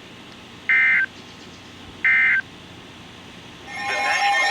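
Two short bursts of weather-radio EAS/SAME digital data tones, a buzzy warble about a third of a second long each, spaced about a second and a half apart. They are the end-of-message code closing a Special Marine Warning broadcast. Near the end a louder sound with steady tones comes in over a steady hiss.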